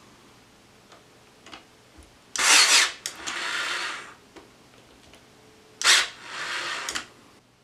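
Cordless brad nailer firing twice into plywood joints. Each shot is a sharp bang followed by about a second of motor whirr as the tool resets; the second shot comes about three and a half seconds after the first.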